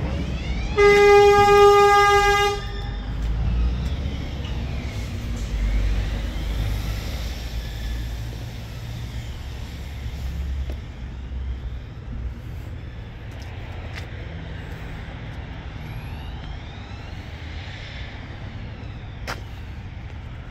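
A vehicle horn sounds once, a steady single-pitch blast of nearly two seconds about a second in, the loudest thing here. A low rumble runs underneath, with a sharp click near the end.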